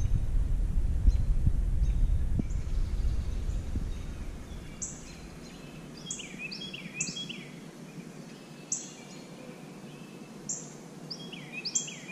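A low rumble for the first few seconds, fading out. Then a songbird calls repeatedly in quick high notes that fall in pitch, a call every second or so.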